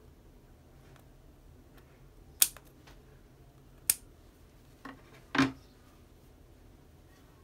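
Scissors snipping twice, two sharp clicks about a second and a half apart, with a fainter click after them. A louder, duller knock follows a moment later.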